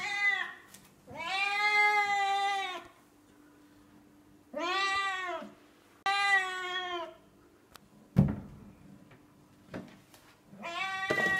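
Young cat meowing: the end of one meow, then three more long, drawn-out meows. A sharp thump follows about eight seconds in, and near the end a cupboard is opened amid clatter and further cries.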